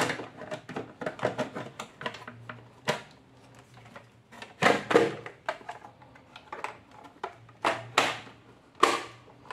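Plastic housing of a Lorenzetti Acqua Ultra electric shower being pushed together by hand: a run of light clicks and taps, with a few louder snaps about halfway through and near the end as the cover's latches catch.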